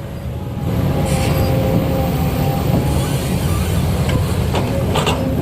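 Heavy diesel engine running, growing louder about a second in, with a couple of sharp knocks near the end.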